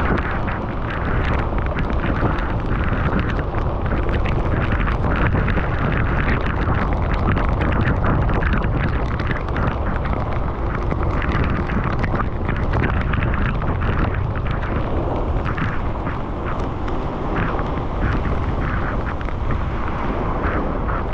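Wind rumbling steadily over the camera microphone of a riding cyclist, with continuous crackling over the rumble.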